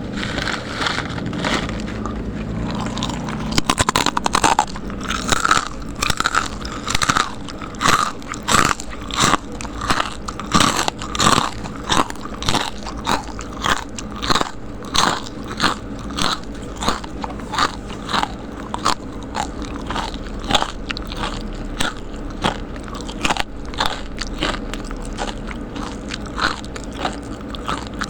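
A person chewing crispy snacks: a steady run of sharp crunches at a regular chewing rhythm, about one or two bites a second.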